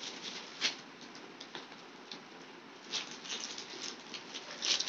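Plastic packaging crinkling and rustling as packed garments are handled, in short irregular bursts of crackle, the loudest near the end.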